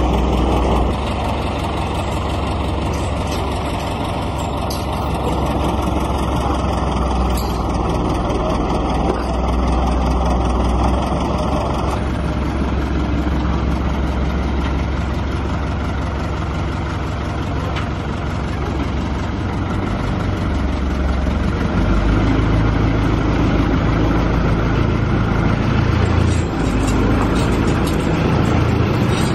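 Diesel engine of an old mobile crane truck running steadily under the load of a sailboat hanging from its jib, its note shifting a little in the second half.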